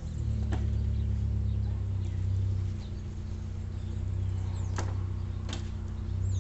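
An engine idling with a steady low hum that swells and eases slightly, with a few short sharp clicks over it.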